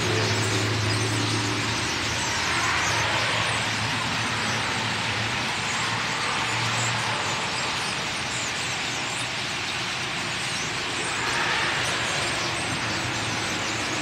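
Steady din of road traffic and a running vehicle engine, with a low, even hum underneath.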